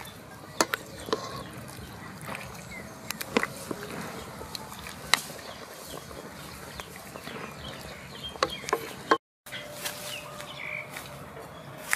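Steady outdoor background noise with scattered sharp clicks and knocks and a few short faint calls. The sound cuts out for a moment about nine seconds in.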